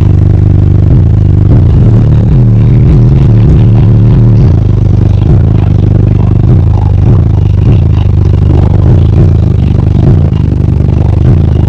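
Car audio system with four 15-inch subwoofers in a sixth-order bandpass enclosure playing bass-heavy music at extreme volume, heard from inside the car. The deep bass is so loud that it overloads the microphone into a steady distorted drone, with rattling from the car's glass and panels.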